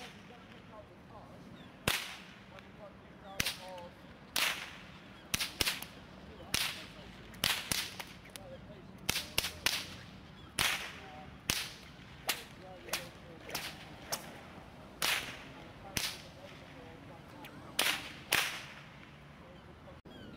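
Bullwhip cracking over and over: about two dozen sharp cracks at uneven intervals, some coming in quick runs of two to four.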